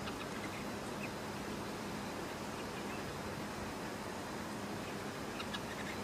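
A few faint, short calls of a small bird, a cluster near the end, over a steady rushing noise like wind.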